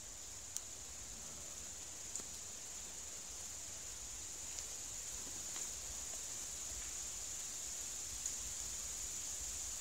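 Steady high-pitched chirring of insects in the woods, with a few faint ticks of twigs and vines being woven into a basket.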